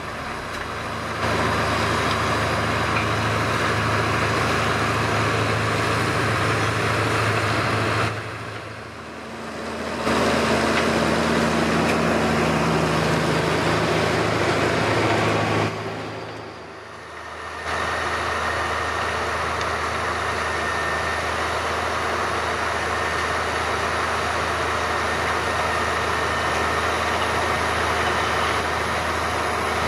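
Same Diamond 265 tractor's diesel engine running steadily under load, driving a Maschio Gabbiano rotary power harrow through the soil. The sound drops away briefly twice, about eight and sixteen seconds in.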